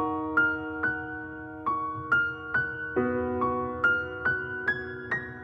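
Background music: a piano playing a slow melody, single notes struck about twice a second and left ringing over held lower notes.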